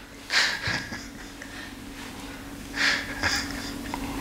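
A man's quiet, breathy laughter: two sharp puffs of breath through the nose, one near the start and one about three seconds in. A steady low hum runs underneath from about a second in.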